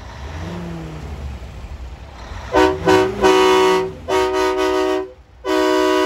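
Big rig air horn sounding a chord in a series of blasts: two short toots, then three longer blasts of about a second each. Underneath, at the start, a diesel engine revs up and back down.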